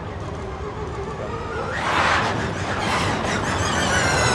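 Formula E single-seater race car moving past, its tyres and body noise swelling about two seconds in, then the high whine of its electric motor and drivetrain rising in pitch as it accelerates.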